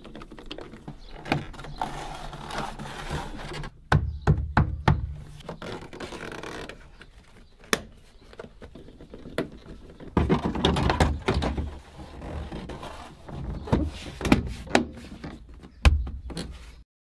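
Plastic interior trim panels and clips of a Volvo 850 estate being pushed and snapped into place along the rear door sill and wheel arch: scattered clicks and knocks with some scraping and rustling of the panels.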